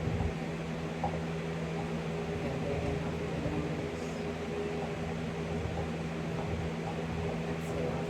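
Electric fan running steadily: an even rush of air over a constant low hum.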